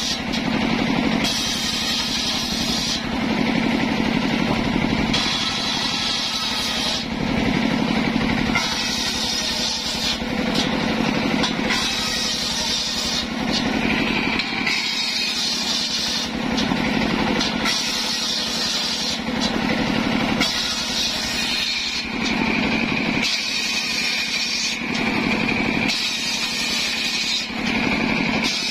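Engine-driven circular saw bench ripping mahogany boards: the engine runs steadily while the blade's cutting noise rises and falls as board after board is fed through it.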